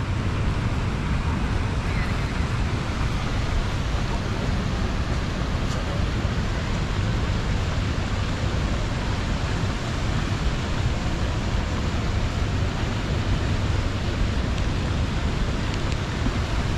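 Fountain water rushing and splashing in a steady, unbroken wash of noise.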